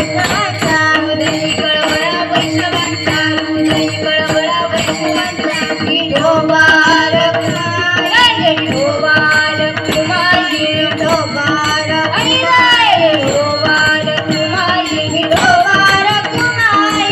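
A woman singing a Marathi Varkari devotional song in a melodic, ornamented line. She is accompanied by steady drum strokes and jingling hand percussion over a held drone.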